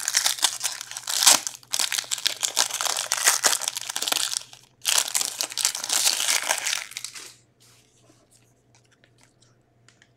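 Foil trading-card pack wrapper being torn and crinkled by hand, in two long stretches with a short break a little before halfway. After that come only faint clicks as the cards are handled.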